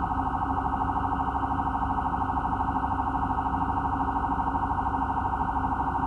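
A vehicle's electronic warning tone sounding steadily, pulsing rapidly and evenly without change.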